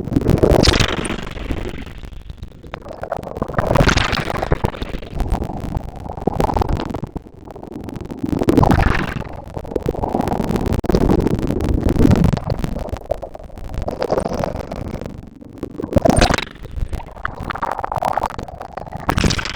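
Ocean waves breaking and washing up a beach, a loud surge of rushing noise about every four seconds.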